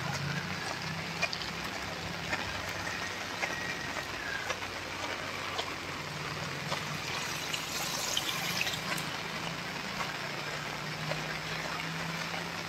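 Heavy rain falling steadily on a wet paved road and trees, a continuous hiss scattered with small drop ticks, over a steady low hum.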